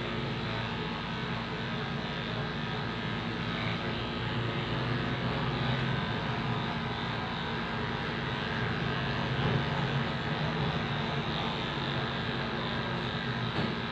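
Electric pet grooming clippers running with a steady buzzing hum while shearing a dog's long coat.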